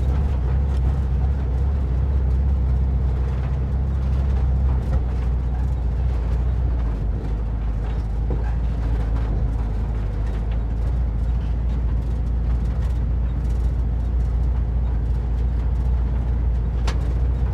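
Vintage VW bus's air-cooled flat-four engine running at low speed on a rough dirt trail, its note shifting lower about five seconds in, with small knocks and rattles from the bouncing body.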